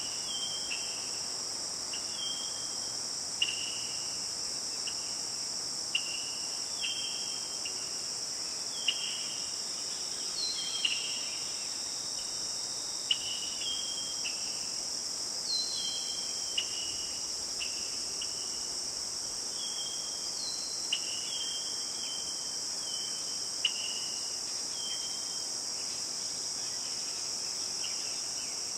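Steady high-pitched drone of insects, with short falling chirps repeated about once a second over it and a few sharp clicks scattered through.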